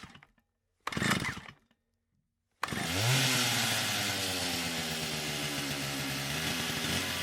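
Two short noises, then an engine starts abruptly about two and a half seconds in, rises briefly in pitch and settles into steady running.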